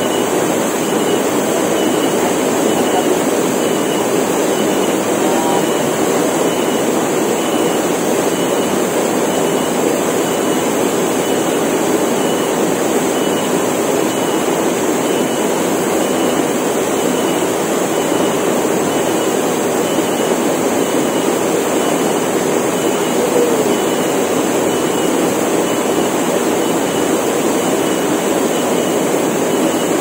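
Small waterfall pouring into a rock pool: a steady, unbroken rush of falling water, with a constant high cicada drone above it.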